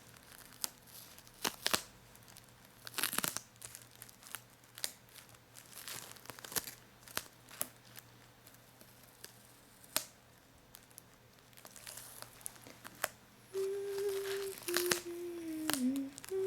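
Paper and plastic being peeled and crinkled: irregular crackly tearing strokes, some sharp, at an uneven pace. Near the end a person hums a few low notes, the last one sliding down.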